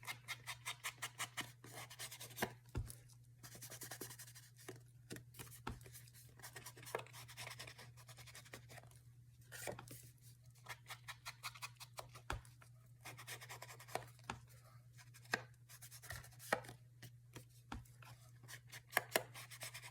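Faint sounds of paper being cut and handled: a quick run of short clicks about a second in, then scattered clicks, rustles and scratches, over a steady low hum.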